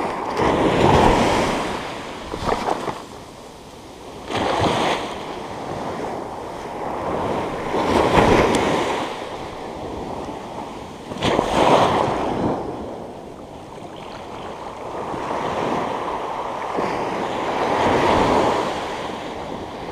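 Ocean surf breaking and washing up a sandy beach, swelling and fading every few seconds.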